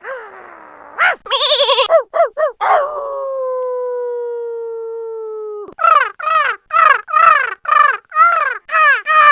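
Animal calls from a sound-effects recording. A few short arched calls come first, then one long held call lasting nearly three seconds that sinks slightly in pitch and cuts off. After that comes a quick run of about ten short, falling calls.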